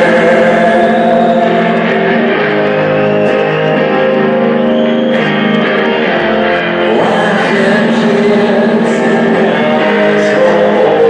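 Rock band playing live, with guitars and singing over a loud, steady band sound.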